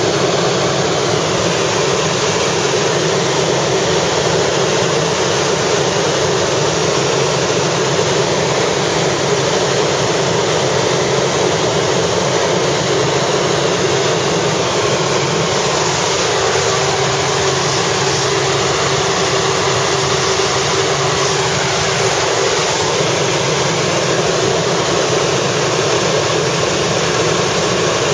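Helicopter in flight, heard from inside the cabin: a loud, steady engine and rotor noise that does not change, with a faint steady hum coming in for a few seconds near the middle.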